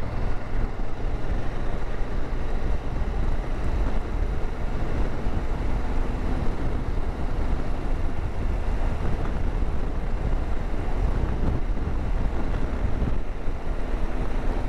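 Motorcycle ridden at road speed in strong wind: a steady, loud rush of wind over the microphone with the engine running underneath.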